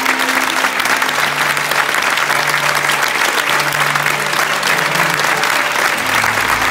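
Theatre audience applauding steadily during the cast's curtain call, with music playing low underneath.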